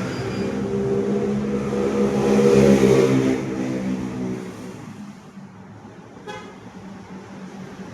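A motor vehicle passing by, its engine hum and road noise growing louder to a peak about two and a half seconds in, then fading away.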